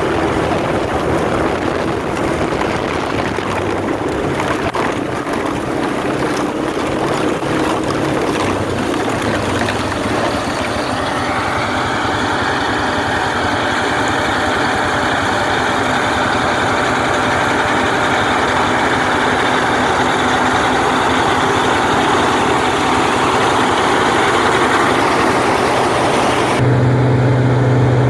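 Heavy diesel cotton-harvesting machinery running steadily, engine and mechanism together. About eleven seconds in, the machine noise shifts higher. Near the end it changes abruptly to a lower, steady engine hum.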